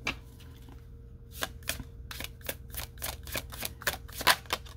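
Tarot cards being shuffled by hand, slapping together in a quick run of about a dozen sharp clicks, about four a second.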